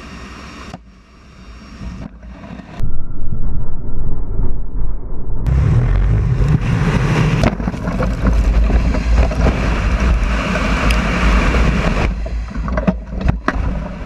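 Steady drone of a cargo aircraft's engines heard from the open cargo bay. After a drop in level, loud rushing wind buffets the camera's microphone as the airdropped load falls clear of the aircraft, growing fuller about five seconds in and easing with a few knocks near the end.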